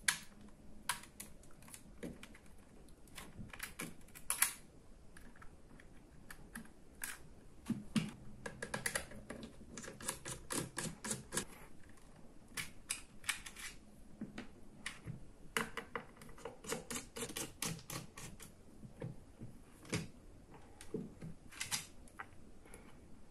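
Irregular small clicks and taps of metal and plastic as the spring battery contacts of an Opus BT-C3100 charger are worked loose from its circuit board and housing, some clicks coming in quick runs.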